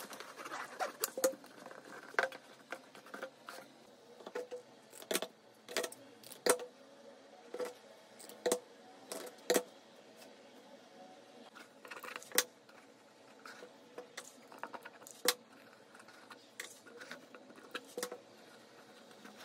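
Hand-crafting handling sounds: many irregular sharp clicks and light taps from working a hot glue gun and gluing fabric and jute braid onto a cardboard box.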